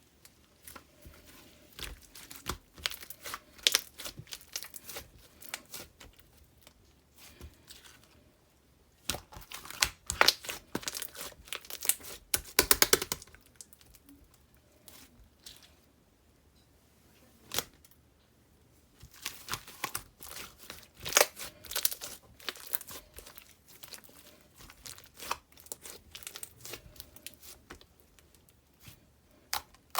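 Slime being squeezed and stretched by hand, giving crackling, popping clicks in three spells with short pauses between.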